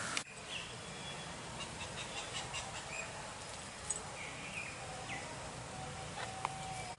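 Quiet outdoor background with a few short, faint bird chirps scattered through it, and one small sharp click about four seconds in.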